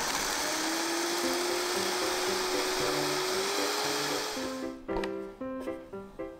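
High-speed blender motor running as it purees pitted red dates with water, its whine climbing slightly in pitch before it cuts off about four and a half seconds in. Background piano music follows.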